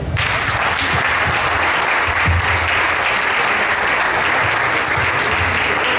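Audience applauding in a hall, breaking out all at once and continuing steadily.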